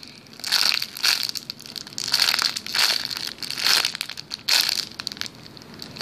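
Clear plastic packaging bag crinkling as a squishy toy is squeezed through it, in about six short bursts a second or so apart.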